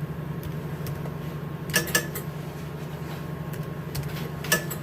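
8-inch floppy disk drive running with a steady hum while reading a directory, its head giving a few sharp clicks about two seconds in and one more near the end.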